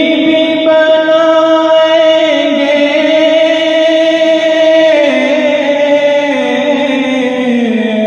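A male voice singing an Urdu naat, drawing out long held notes with no words, stepping down in pitch about five seconds in and again near the end.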